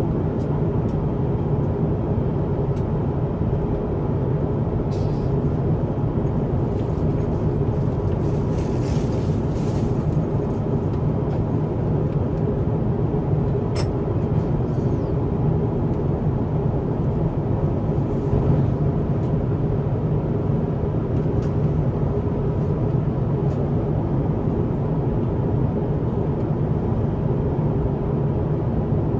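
Steady cabin noise inside an Airbus A350-1000 airliner: an even, low drone of engines and airflow, with a faint click about halfway through.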